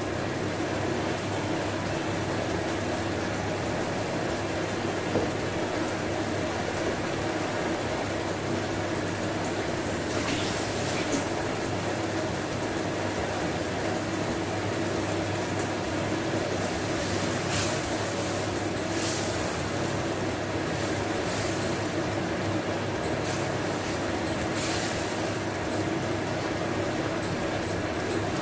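Spiced coconut-milk sauce simmering in a pan: a steady bubbling hiss over a low steady hum, with a few short clicks.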